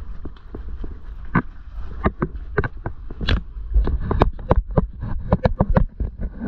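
Footsteps knocking on the weathered wooden planks of a dock, about two to three hollow knocks a second, over a low rumble of wind on the microphone.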